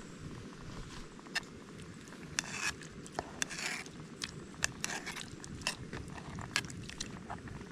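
Irregular sharp crackles and clicks, with a couple of short scraping rustles about two and a half and three and a half seconds in, over a steady low rumble.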